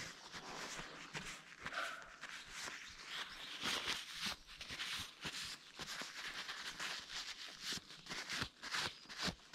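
Paper tissue rustling and crinkling as it is handled close to the microphone, with irregular crackles and scuffs.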